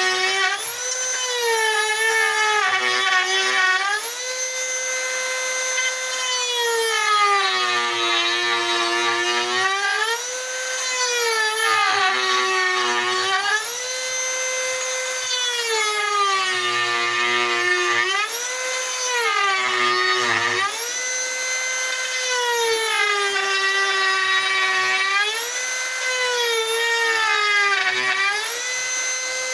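Electric rotary carving tool cutting wood, its high whine dropping in pitch each time the bit bites in and rising back when it eases off, about every three to four seconds.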